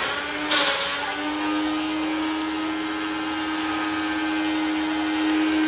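Small electric blender motor running steadily at high speed, grinding eggshells into powder, with a rattly hiss over the hum; the pitch steps up slightly about a second in.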